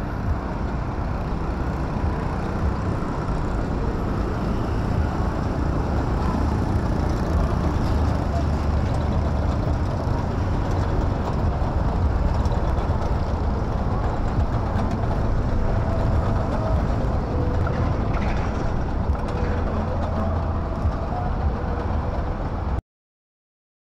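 Steady outdoor street noise dominated by a low rumble of passing traffic, which cuts off abruptly near the end.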